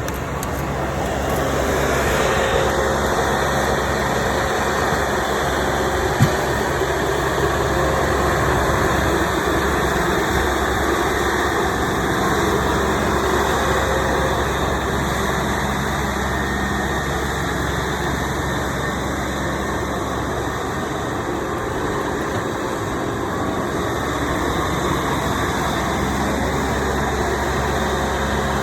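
An engine running steadily with a constant hiss, and a single sharp click about six seconds in.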